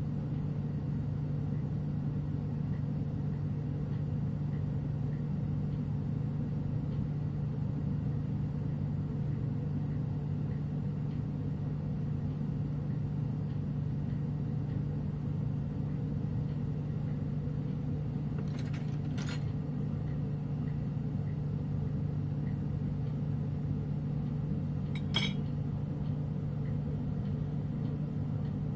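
Glass-working torch burning with a steady low roar and hum. A few small clinks about two-thirds through, and one sharper clink near the end.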